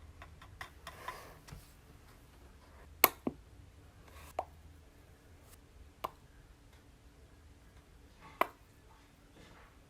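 Paintbrush handle tapping on a wooden birdhouse while dabbing on paint dots: four sharp light taps spread out a second or two apart, with faint soft handling noise between them.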